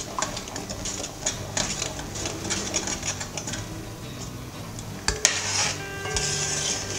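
A spoon stirring and scraping around an enamel cooking pot of thick paprika sauce, mixing in cream cheese: a quick run of small clicks and scrapes, with one sharper knock about five seconds in.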